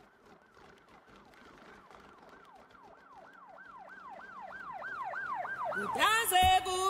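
A siren wailing in quick repeated up-and-down sweeps, about three a second, growing steadily louder. Just before the end, music with sustained singing comes in over it.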